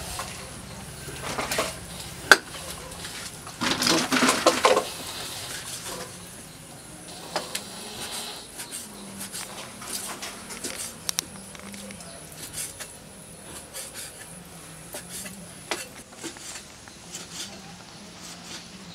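Kitchen knife slicing raw pork on a wooden chopping board: irregular taps and clicks of the blade meeting the board, with one sharp knock a little after two seconds and a louder run of knocks about four seconds in.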